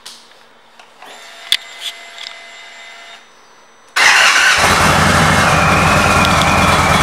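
Indian Chief Dark Horse's Thunder Stroke 111 V-twin being started. A faint whine and a sharp click come first, then about four seconds in the engine fires suddenly and settles into a steady, even idle.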